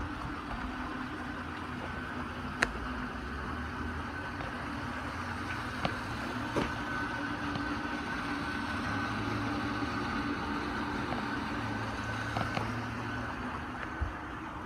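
Steady machine hum with a faint high whine, broken by a few sharp clicks and knocks, the loudest about two and a half seconds in.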